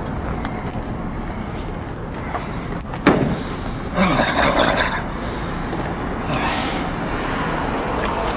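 Steady outdoor traffic noise, with a sharp thump about three seconds in and a loud burst of hiss about a second later.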